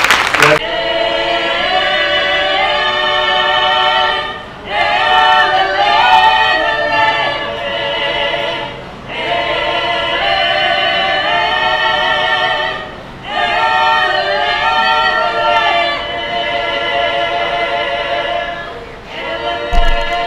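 An a cappella choir singing sustained chords in phrases, with short breaks between phrases about every four seconds.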